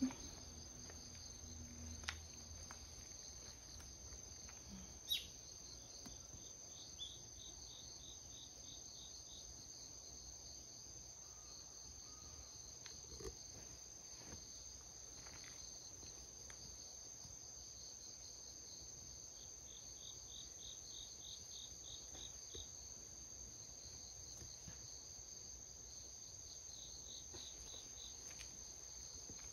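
Faint insects chirping outdoors: a steady high-pitched drone with three short runs of rapid, evenly spaced chirps. A few soft clicks, the sharpest about five seconds in.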